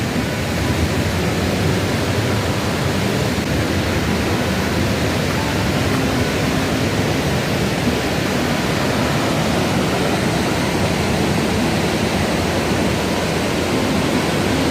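Steady, loud rushing noise of fast-flowing water.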